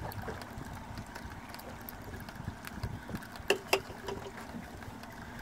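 Sea water lapping and splashing against the hull of a drifting boat, with two sharp knocks in quick succession about three and a half seconds in.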